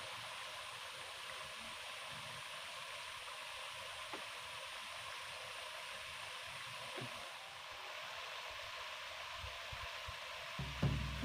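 Steady, soft rush of a small stream's running water. Near the end a louder low sound cuts in.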